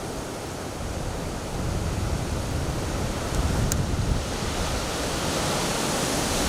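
Strong wind blowing across the microphone: a steady rushing noise with uneven low rumbling buffets that build from about a second and a half in.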